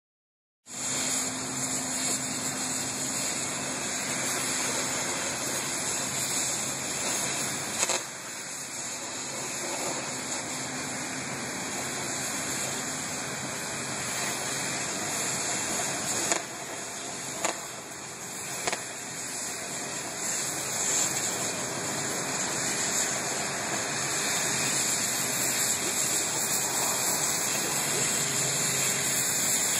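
Steel water tower being cut apart with a cutting torch: a steady hiss over a faint low engine hum, with a few sharp pops about 8, 16, 17 and 19 seconds in.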